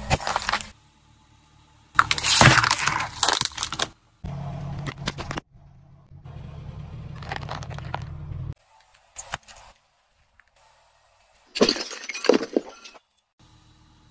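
Car tyre rolling over and crushing small plastic toys and objects on pavement: separate bursts of crunching and cracking plastic, with the car's low, steady engine hum in between. The sounds start and stop abruptly from clip to clip.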